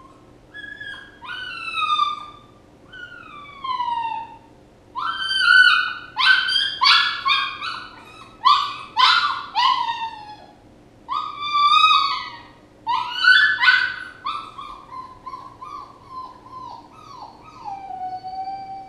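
Puppy whining: a run of high, downward-sliding whimpers, with quick short yelps packed together in the middle and one long falling whine near the end.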